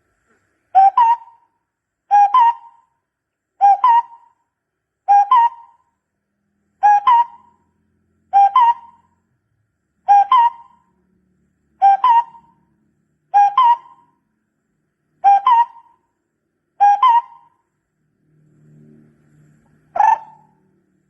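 Barbet calling: a loud, hollow two-part note repeated a dozen times, about once every second and a half, with a pause near the end before one last call.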